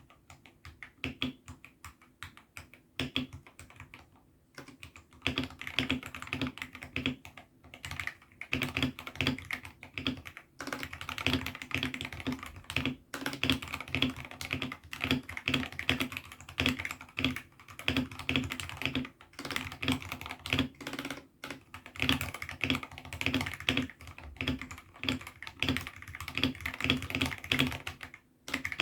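Mechanical keyboard being typed on, fitted with AKKO CS Sakura linear switches in a 68-key hot-swap kit. Scattered keystrokes for the first few seconds, then fast continuous typing with a few short pauses.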